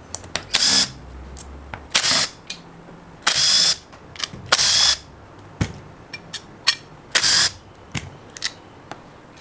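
Cordless impact driver spinning out the M6 cap screws of a Rotax DD2 engine's gearbox cover, in five short bursts of about half a second each. Light clicks come between the bursts.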